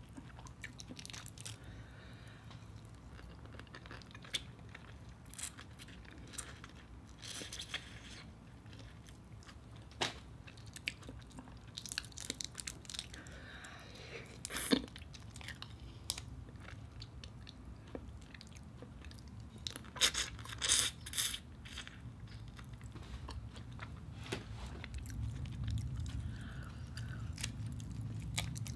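Close-miked chewing and crunching as large shrimp are eaten, with scattered sharp crunches and clicks. The loudest cluster of crunches comes about twenty seconds in.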